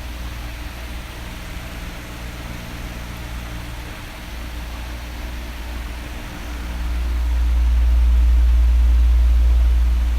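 Electric fan running with a steady airy hiss and a low rumble. The rumble swells for about three seconds near the end, as the oscillating fan's airflow sweeps across.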